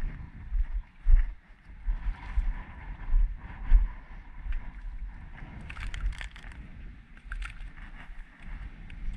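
Wind gusting on the camera microphone, with choppy water washing against the bulkhead. A few short clicks come about six to seven seconds in.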